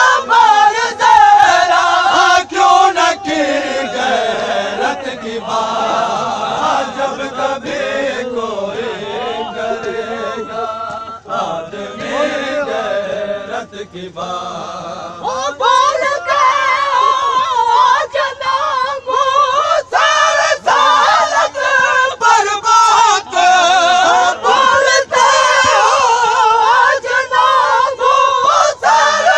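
A crowd of men chanting a noha (mourning lament) together, with regular sharp beats keeping time. It drops quieter in the middle, then swells back to full loudness about halfway through.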